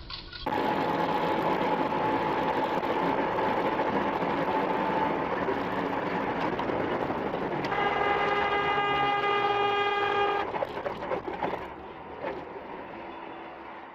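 A vehicle horn sounds one long, steady blast of about three seconds, over loud, steady rumbling noise that starts abruptly about half a second in and drops away after the horn stops.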